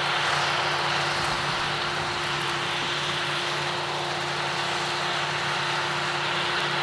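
Massey Ferguson 40 combine harvester at work in wheat: a steady engine and machinery drone with a constant whine that does not change.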